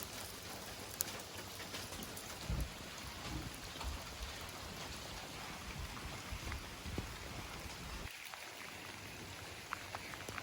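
Heavy rain falling steadily: a constant hiss of downpour with scattered drop ticks and a few brief low thumps.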